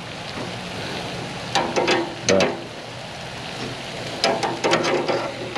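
Meat sizzling on a grill, with metal tongs clinking and scraping against the grate in short bursts, about a second and a half in and again during the last second and a half.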